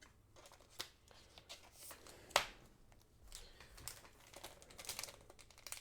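Faint rustling and light clicks of trading cards and their packaging being handled, with one sharper tick about two and a half seconds in and busier rustling toward the end.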